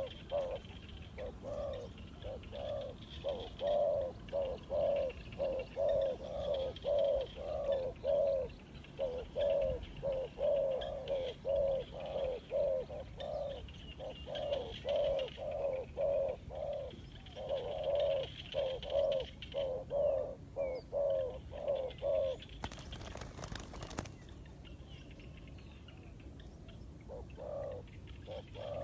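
Spotted dove cooing in long, evenly repeated series of low notes, two to three a second. The coos break off for a brief rush of noise about 23 s in, and a few more coos follow near the end.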